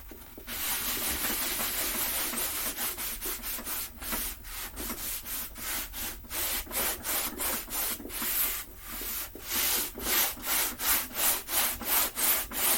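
Wiping and scrubbing a work table top with rubbing alcohol to clean off grime: a continuous rubbing at first, then regular back-and-forth strokes about twice a second.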